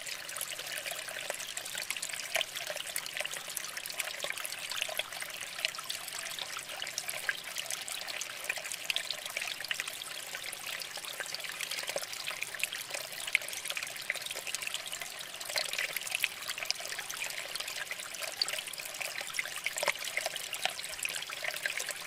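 Water trickling steadily from tier to tier of a small terracotta-pot fountain and splashing into the water-filled bottom pot, with a constant patter of small splashes.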